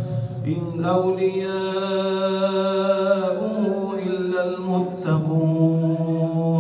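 Male imam's melodic Quran recitation into a microphone, with long drawn-out notes. It comes in about three phrases, the pitch stepping up in the middle one.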